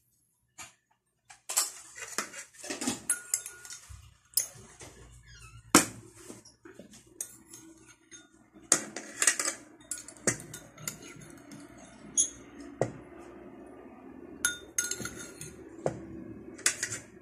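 Metal spoon and fork clinking and scraping against a ceramic dinner plate while eating, in irregular sharp clinks starting about a second and a half in.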